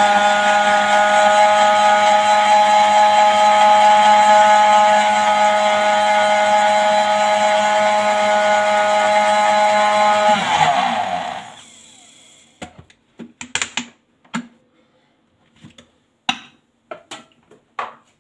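Countertop blender running steadily at speed, blending green kiwi and spinach juice. About ten seconds in it is switched off and the motor winds down with a falling pitch, followed by a few light clicks and knocks as the jug is taken off the base.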